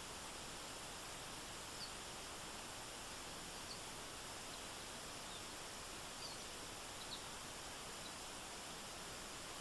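Steady, even rushing of a forest stream, with a few short, faint high chirps scattered over it.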